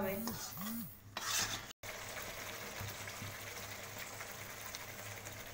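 Thick onion-tomato masala paste frying and sizzling in a metal kadai, stirred with a slotted metal spoon, as the masala with boiled eggs and potatoes is sautéed. After a brief break about two seconds in, the sizzle goes on as a steady hiss.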